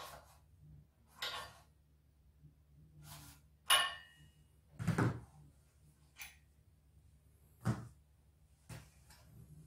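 Metal tools and parts knocking and clicking against a string trimmer's gear head and four-tooth steel blade while the blade is being fitted, about eight separate knocks spread out, one with a short metallic ring about four seconds in.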